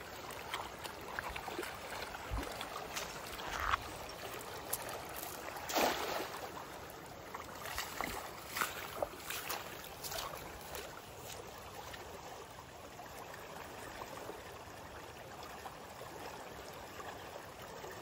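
Fast-flowing mountain stream below a waterfall, rushing steadily, with a few short sharp knocks or splashes over the first half.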